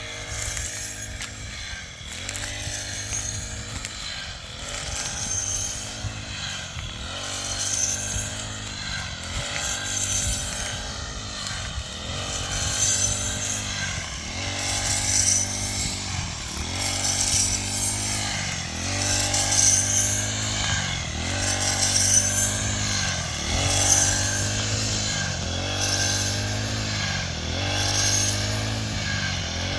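A small engine running steadily, its pitch dipping and recovering about every one and a half to two seconds, as if repeatedly taking a load.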